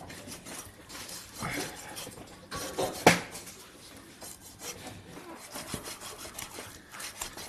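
Knife cutting and scraping through raw lamb on a wooden board, with one sharp knock about three seconds in.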